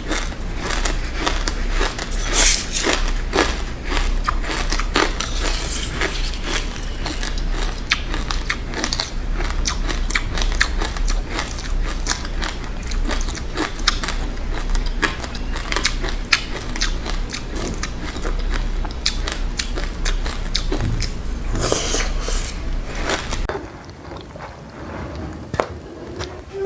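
Dense, rapid crunching and cracking of dry chilli seeds and buckwheat being bitten and chewed: many tiny clicks in quick succession. It quietens shortly before the end.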